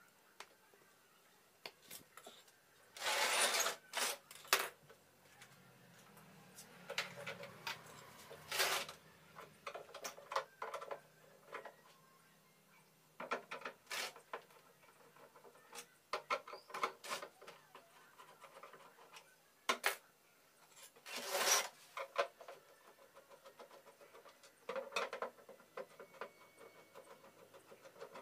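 A long screwdriver backing screws out of an LG CRT television's plastic rear housing, and the back cover being handled: irregular clicks, squeaks and scrapes, with a few louder scraping rustles about three seconds in and again past twenty seconds.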